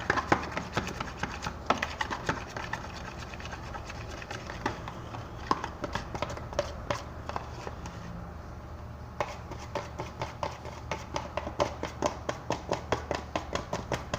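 A utensil stirring a runny slime mixture of white glue and boric acid water in a container, clicking and tapping against its sides. The tapping becomes quicker and more regular, about three a second, from about nine seconds in. The mixture has stayed liquid and not set into slime.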